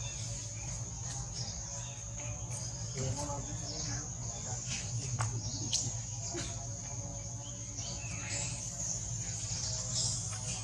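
Insects droning in a steady high-pitched band, with scattered short chirps and clicks over a low steady rumble.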